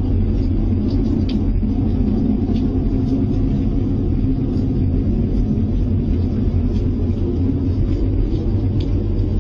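Unexplained low rumbling drone heard from the sky, one of the 'strange sky sounds' reported in 2015. It is loud and steady, with a slightly wavering hum above the rumble.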